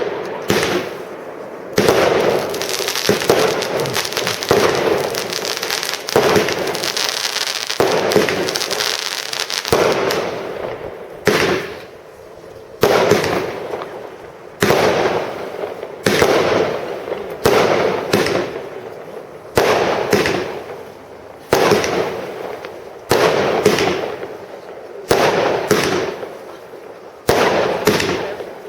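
Consumer fireworks battery (cake) firing shot after shot, with a sharp report roughly every one and a half to two seconds, each followed by a fading hiss.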